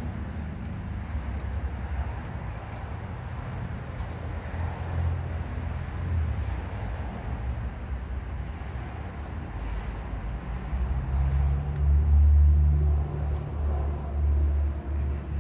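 Low, steady rumble of a vehicle engine running, growing louder about ten seconds in, with a few faint light ticks over it.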